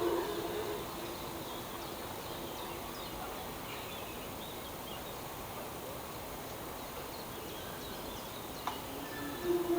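A steady low tone, the unexplained 'strange sound', fades out within a second of the start and comes back near the end. In between, a steady outdoor background hiss with faint bird chirps and one brief click.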